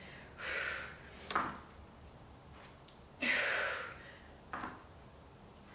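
A woman's hard breathing under exertion during a dumbbell exercise: four short, sharp exhales a second or two apart, the loudest just after three seconds in.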